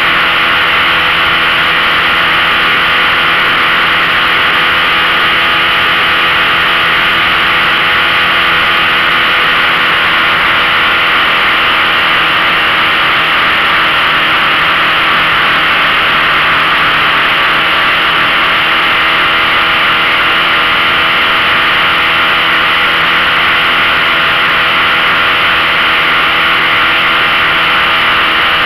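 A 15 hp outboard motor running steadily at an even speed, pushing a 14-foot V-bottom fishing boat under load while it tows a tub, with a dense hiss over the engine tone.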